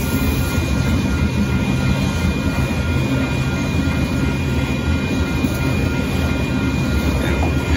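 Loaded gravel hopper cars of a freight train rolling past: a steady rumble of wheels on rail, with a thin steady high tone running over it.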